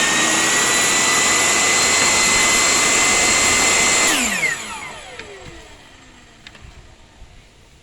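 Table saw running at speed with a steady whine, then switched off about four seconds in, its blade winding down with a falling whine that fades away over a couple of seconds.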